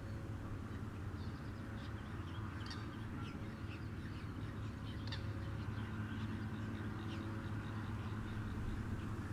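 Birds calling in short, high chirps scattered all through, over a steady low rumble.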